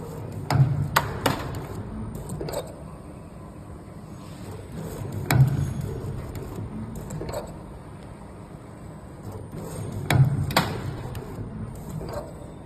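Cam-less servo spring machine forming torsion springs from wire, working in a regular cycle of about five seconds. Each cycle has a short burst of servo hum with a cluster of sharp metallic clicks, then a single lighter click about two seconds later.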